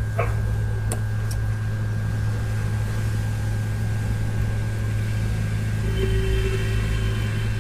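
Rajshri 857AT hot-air SMD rework station blowing steadily over a phone logic board, with a strong low electrical hum, as it melts the solder under an FPC connector to desolder it. A faint steady whine joins about six seconds in.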